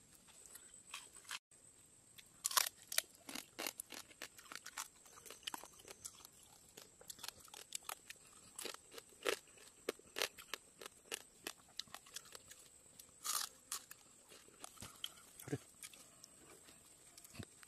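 Irregular crunching and scraping clicks from food being worked by hand and with a stick in a split bamboo tube, a few sharper cracks among them.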